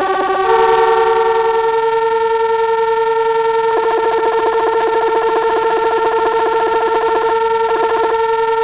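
Circuit-bent electronic keyboard holding a steady, buzzy electronic tone. The pitch shifts slightly about half a second in. From about three and a half seconds in, a fast stuttering pulse plays over the tone, stops near the end, and briefly returns.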